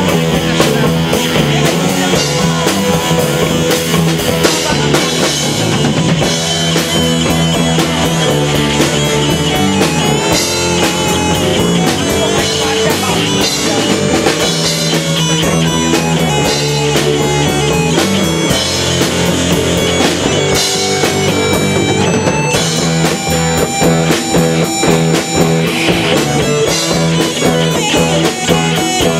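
Rock music with guitar and a drum kit.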